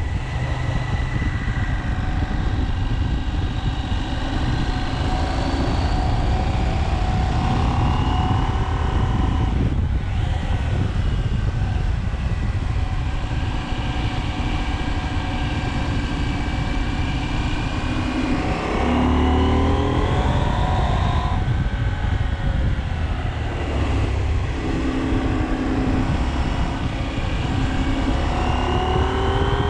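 KTM 790 Adventure's parallel-twin engine under way, pitch climbing as it accelerates and dropping at each gear change, several times over. A constant low rumble of wind on the microphone runs underneath.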